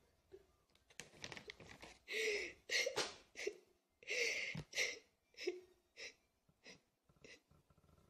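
A girl crying: a run of short, gasping sobs and sniffles, loudest in the middle and tailing off toward the end.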